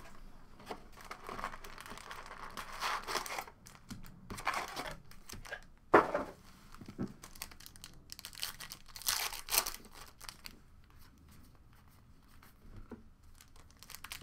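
Foil trading-card packs crinkling and tearing as they are ripped open by hand, in irregular rustling bursts. One sharp knock about six seconds in is the loudest sound.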